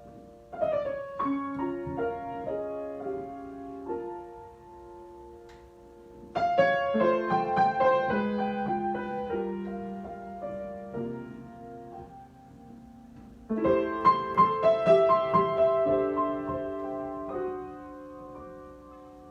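Solo piano improvising in three phrases of chords and melody, each beginning with a loud cluster of struck notes that then ring on and fade.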